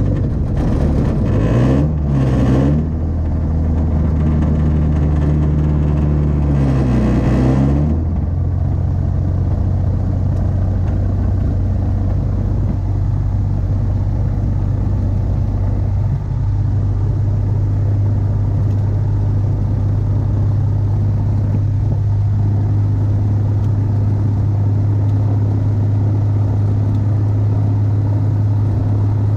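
Rotax 582 two-cylinder two-stroke engine of an X-Air microlight, just started. It revs up and back down twice in the first eight seconds, then settles into a steady idle.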